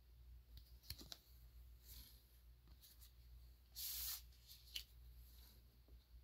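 Faint handling of a stack of glossy photo cards: soft ticks as cards are slid off the stack, with a louder brief swish about four seconds in.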